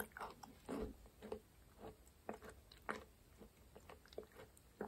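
Chewing a piece of raw aloe vera gel: short, irregular wet squishes and clicks every third to half second.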